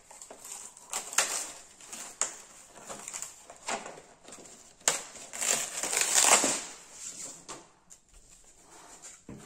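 Clear plastic bag crinkling and rustling as a fibreglass glider wing panel is slid out of it. The rustling comes in irregular bursts with sharp crackles and is loudest about five to six and a half seconds in.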